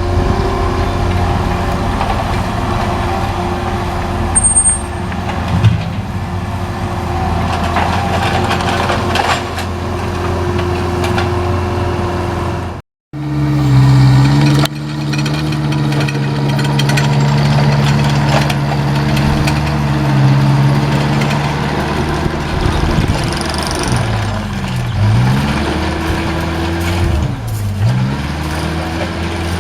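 Large engine of heavy tree-removal machinery running steadily. Near the end its pitch sags sharply and recovers twice, as the engine bogs under load.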